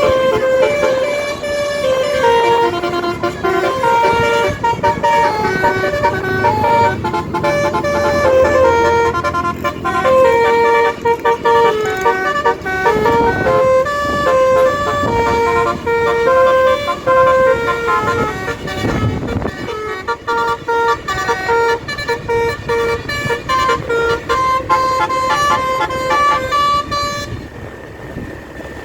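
Tour bus's Basuri multi-tone 'telolet' air horn playing a long melody of stepped, held notes, which stops near the end.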